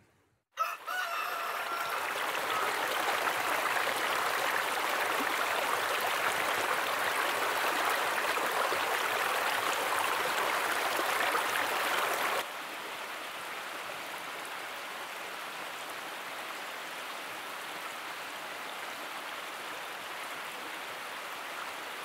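A rooster crows once about a second in, over a mountain stream rushing steadily over rocks. About twelve seconds in the water sound cuts to a quieter, more distant river rush.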